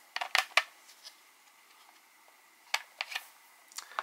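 Small plastic clicks and taps as the battery cap on the grip of a FrSky X-Lite radio transmitter is popped off and the 18500 lithium cell is taken out. A quick run of clicks comes near the start, then a few more about three seconds in and one near the end.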